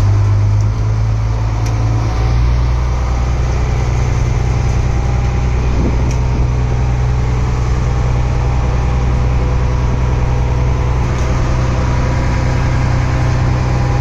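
Mechanized trawl boat's inboard diesel engine running with a steady low drone; its note shifts slightly about two seconds in.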